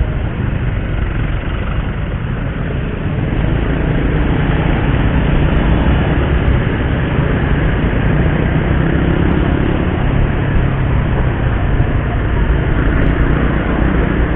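Riding noise on a moving motorcycle: a steady rush of engine, road and wind noise, growing louder about three to four seconds in as the bike picks up speed.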